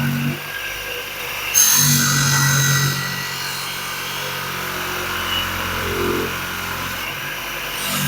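Handheld electric power tool running with a steady motor hum while working on metal, with a harsh grinding hiss from about one and a half seconds in that lasts over a second.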